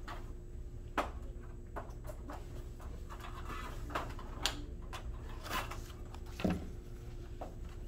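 Scattered light clicks and knocks from hands handling paper and plastic game pieces, with a duller knock about six and a half seconds in, over a steady low room hum.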